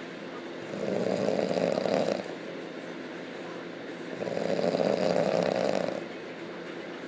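A person snoring loudly: two long snores, each about a second and a half, about three seconds apart in a steady rhythm, with quieter breathing sound between them.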